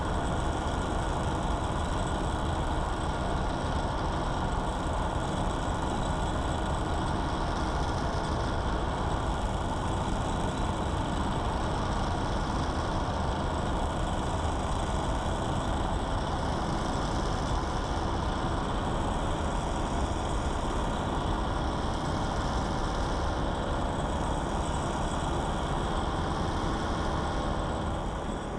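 Paramotor trike's engine and propeller running steadily at cruise power in flight, with no change in pitch.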